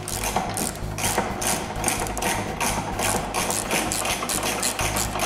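Background music with a quick, steady beat of about four strokes a second over held bass notes.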